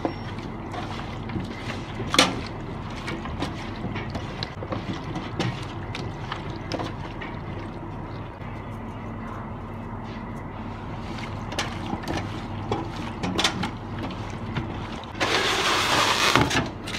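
Gloved hands squelching and turning marinated raw chicken legs in a stainless steel pan, with scattered clicks and knocks against the metal over a steady hum. About a second and a half before the end, cling film is pulled off its roll and stretched over the pan, the loudest sound, lasting about a second and a half.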